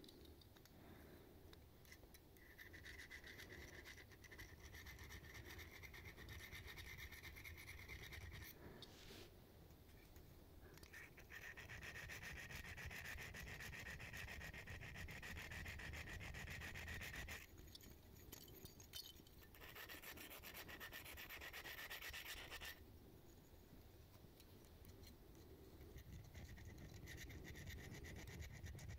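Small hook sharpener drawn quickly back and forth over a fishing lure's treble hook points, sharpening them: a faint, fine metal scraping in four runs of a few seconds each, with short pauses between.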